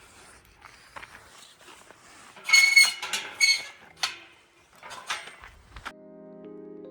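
Metal trail gate squeaking twice on its hinges, with a few sharp knocks of the gate or latch after it. Soft piano music comes in near the end.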